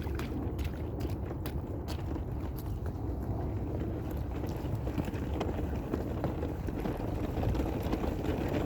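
Steady low rumble of wind on the microphone, with a few soft taps, like a toddler's steps in wet puddles, in the first two seconds.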